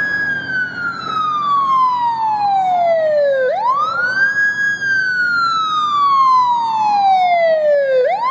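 Fire engine siren wailing. Each cycle climbs quickly and then slides slowly down. It starts high, falls, sweeps back up about three and a half seconds in, falls again, and climbs once more near the end.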